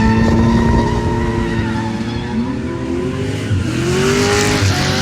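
Drift car engine revving, its pitch holding steady and then rising and falling in swells, with tyre squeal building toward the end.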